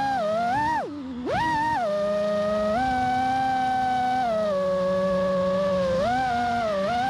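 FPV quadcopter's motors whining, the pitch gliding up and down with throttle, with a brief throttle cut about a second in where the whine drops low and quiet before spooling back up.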